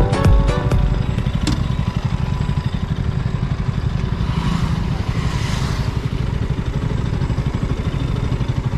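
KTM RC 200's single-cylinder engine running steadily at low revs, a fast pulsing exhaust note. A brief rushing noise comes in about four seconds in.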